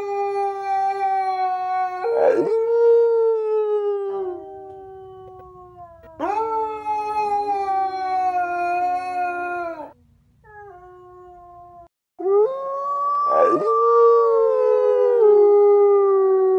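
Dogs howling: long, drawn-out howls that slide slowly down in pitch, with more than one voice overlapping at times. There are about four howls, with short breaks between them and a quieter, shorter howl around ten seconds in.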